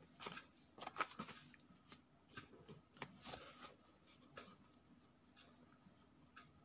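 Faint scratching of a ballpoint pen writing on notebook paper, in short irregular strokes.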